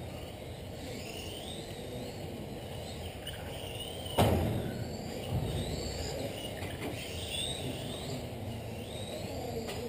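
Electric RC race cars running laps on a carpet track: several motor whines sliding up and down in pitch as the throttles open and close, over a low rumble. About four seconds in, a sharp knock that echoes in the hall, the loudest moment.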